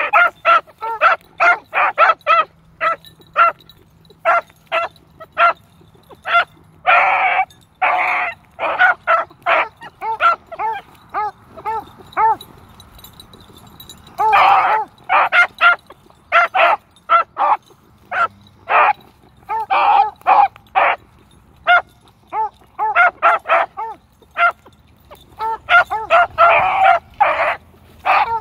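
Freshly started beagle pups giving tongue on a track: a busy run of short chop barks mixed with longer drawn-out bawls, easing off for a few seconds around the middle.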